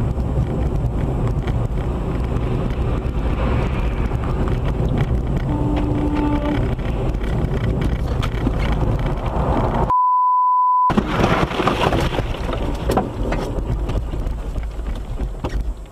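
Road and engine noise heard from inside a moving car. About ten seconds in, a one-second censor bleep cuts the sound out; after it the noise turns louder and rougher, with many knocks as the car ploughs into deep snow and snow sprays over the windshield.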